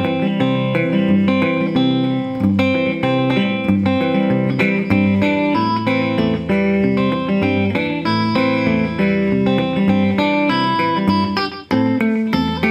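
Gretsch electric guitar played fingerstyle through an amp in a Travis-picking pattern: thumbed bass notes under pinched and plucked treble notes. The playing breaks off for a moment about a second before the end, then carries on.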